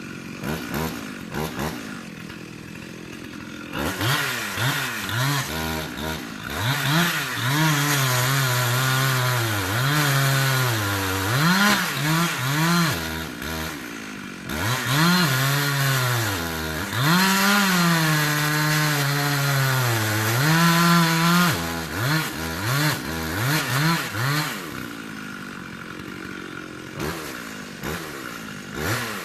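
Two-stroke chainsaw cutting through a poplar trunk: blipped at idle for the first few seconds, then held at full throttle for about twenty seconds, its pitch sagging and recovering again and again as the chain bites into the wood, before dropping back to idle with a couple of short revs near the end.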